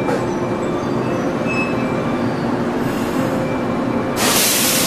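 Yellow JR West electric train, Okayama depot set B14, running slowly out of the station, its motors and wheels making a steady sound with a few faint steady tones. A loud hiss starts suddenly near the end.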